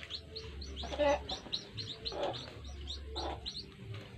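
Chickens calling: a run of quick, high falling peeps, about four or five a second, with three short, lower calls about one, two and three seconds in.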